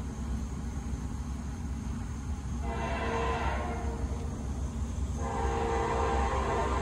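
A Norfolk Southern freight locomotive's air horn sounding in the distance, with the train not yet in sight: a blast of about a second starting about two and a half seconds in, then a long blast from about five seconds in. A steady low rumble runs underneath.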